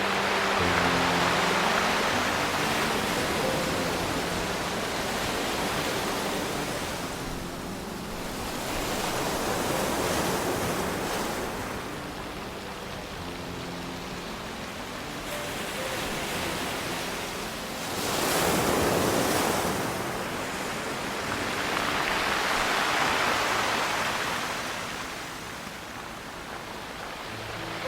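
Ocean surf on a pebble beach: waves surge in and draw back about four times, with one sharper surge about two-thirds of the way through. Soft music sounds faintly underneath at times.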